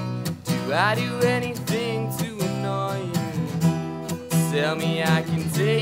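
Live acoustic guitar strumming over an electric bass guitar, with a man's voice singing a held, gliding line twice.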